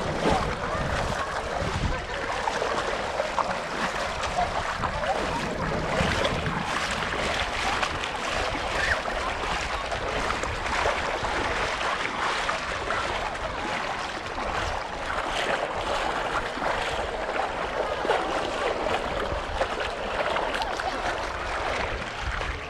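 Beach ambience: surf washing on a sandy shore, steady and unbroken, with wind gusting on the microphone and a faint murmur of distant voices.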